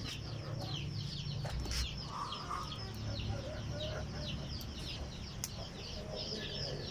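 Hungry chickens calling: many short, high, falling cheeps in quick succession, with a few sharp clicks among them.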